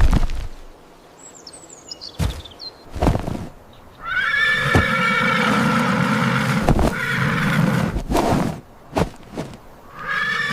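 A horse neighing: one long whinny of about four seconds in the middle, with another starting near the end, and scattered sharp knocks before and between them.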